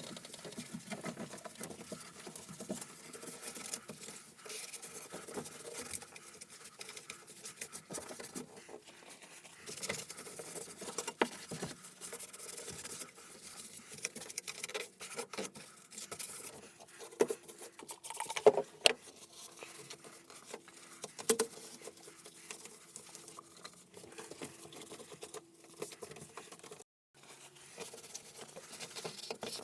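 Irregular light tapping, scratching and rustling, with a few sharper clicks, as of small parts or materials being handled.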